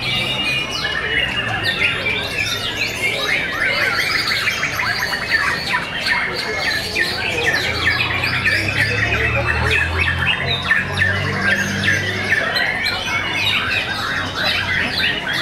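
Several white-rumped shamas (murai batu) singing at once in contest, a dense, continuous tangle of rapid trills, whistles and chattering phrases.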